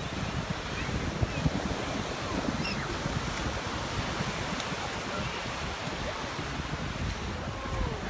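Surf washing onto the beach, with wind buffeting the microphone in gusts.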